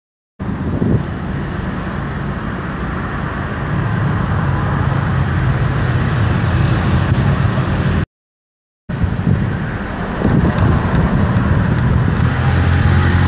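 Motor vehicle engine running steadily with road noise, broken by a brief cut to silence a little past halfway.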